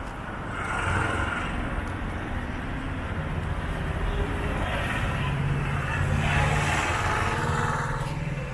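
City street traffic: motor vehicles passing close by, with engine hum and road noise that swell about a second in and again near the end.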